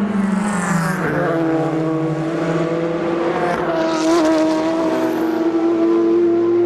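Race car engines: the first engine note drops in pitch over about a second as a car slows, then another note climbs steadily as a car accelerates away.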